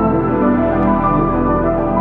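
Calm ambient background music with sustained chords over a steady low bass.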